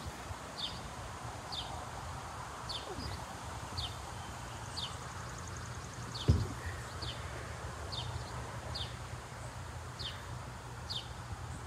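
A bird repeating a short downslurred chirp about once a second, over a steady low hum, with a single thump about halfway through.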